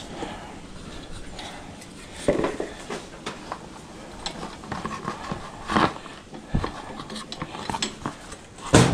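Metal clinking, rattling and knocking as an aluminum car radiator and hand tools are handled on a workbench, with several separate knocks and the loudest one near the end.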